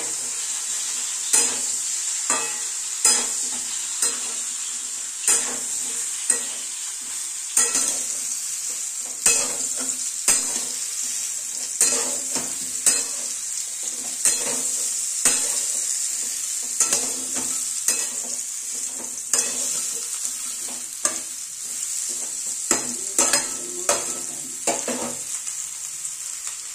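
Pieces of sun-dried raw mango frying in oil in a steel wok, a steady sizzle, while a flat metal spatula scrapes and knocks against the pan about once a second as they are stirred.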